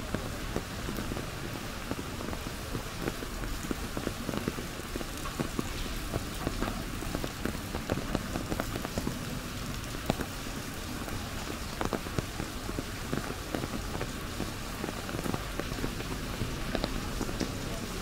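Steady rain falling on an umbrella overhead: many small, separate drop hits over an even hiss.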